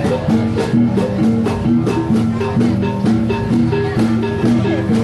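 Traditional Sabah gong ensemble music for the sazau dance: pitched gong strokes and a drum in a steady, repeating rhythm.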